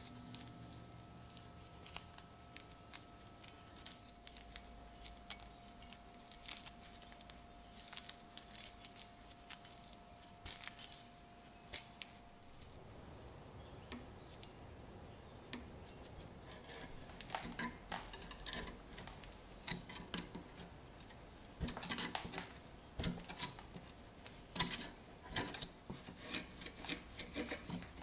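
Faint scattered clicks and rubs as a rusted, soil-encrusted bayonet is handled in a gloved hand. From a little past halfway they give way to denser scraping and ticking as a thin metal pick gouges caked soil and rust off the hilt, the crust crumbling away.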